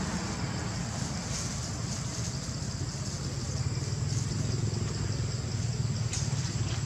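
Steady low rumble of a motor vehicle engine running, with a few light clicks near the end.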